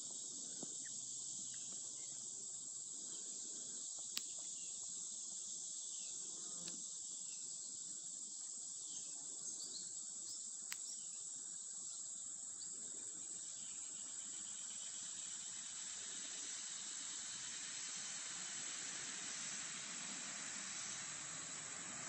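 Steady, high-pitched chorus of insects, with a couple of faint clicks.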